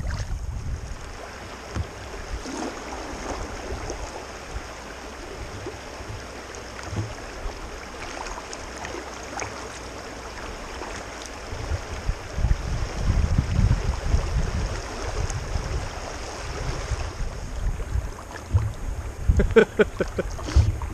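Kayak gliding across a lake: water lapping and swishing against the hull as it is paddled, with wind buffeting the microphone, gustier in the second half.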